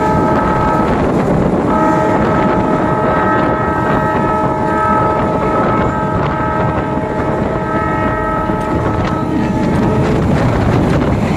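Meter-gauge train's horn sounding as the train runs: one blast that ends about a second in, then a long steady blast from about two seconds in to near the end, over the train's running rumble and wind on the microphone.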